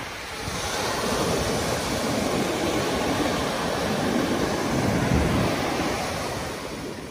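Ocean surf breaking and washing up a sandy beach, a steady rushing that swells loudest about five seconds in and eases off near the end.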